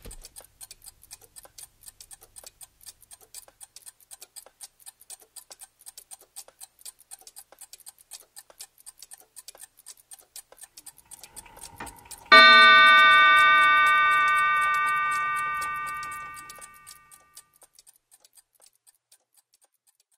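Clock ticking steadily. About twelve seconds in it strikes once: a single bell-like chime that rings out and fades over about five seconds.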